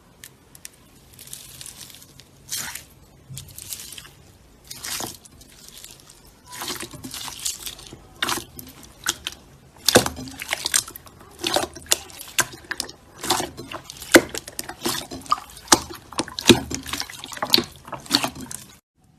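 Slime being squeezed and worked by hand: irregular wet squelches and sticky pops, getting busier and louder about a third of the way in.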